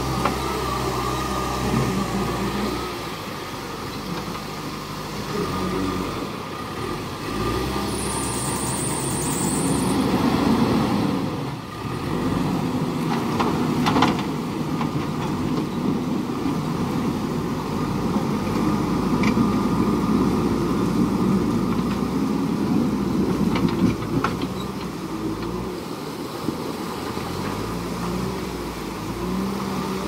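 JCB backhoe loader's diesel engine running under load as the machine drives through floodwater, its revs rising and falling.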